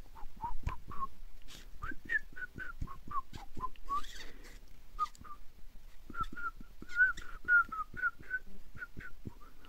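A person whistling by mouth: a run of short, quick notes that rise and fall in pitch, with soft clicks between them.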